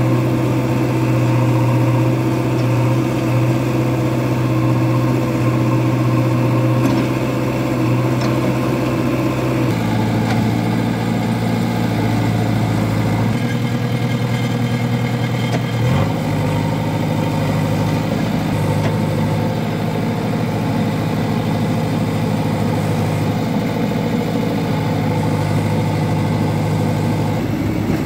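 JCB 3DX backhoe loader's diesel engine running steadily while the machine digs. Its pitch shifts to a new level a few times, about ten, thirteen and sixteen seconds in, as the load changes, with a brief knock at the last change.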